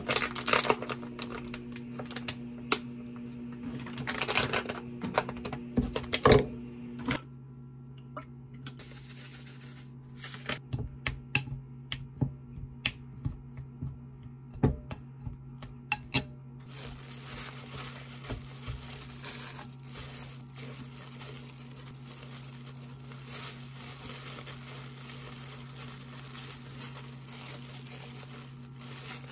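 Kitchen food-prep sounds: a plastic food packet crinkling and rustling with sharp clicks, then a spoon tapping and scraping in a glass bowl of rice, then the soft rustle of disposable plastic gloves shaping a kimbap roll. A steady low hum runs underneath.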